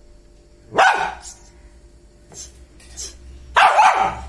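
Small white spitz-type dog barking: two loud, sharp barks, one about a second in and one near the end.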